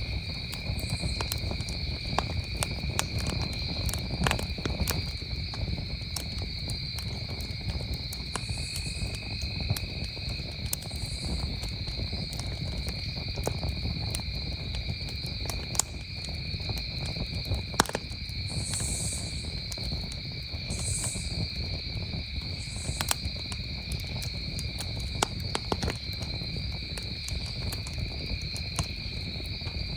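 Wood campfire crackling with scattered sharp pops over a steady chorus of crickets trilling at two pitches. A higher insect call comes and goes every couple of seconds at times.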